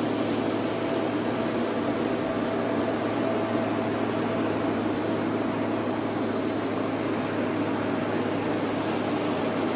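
Multi-axle heavy-haul transporter's engine running steadily as it creeps along the road: a constant drone with a low hum and a fainter higher tone.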